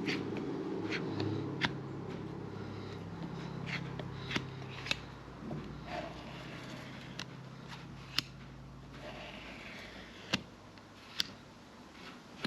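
Scattered sharp clicks and light scrapes of tools and materials being handled, irregular and unhurried, over a low steady hum that fades out about nine seconds in.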